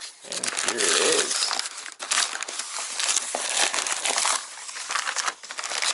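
Brown protective wrapping paper crinkling and rustling as it is pulled back from around a rifle in its box, loud in uneven surges with many small crackles.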